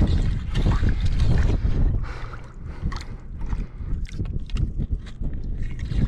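Shallow sea water sloshing and splashing around a rock as someone wades through it, over a low rumble; the splashing is busiest in the first two seconds.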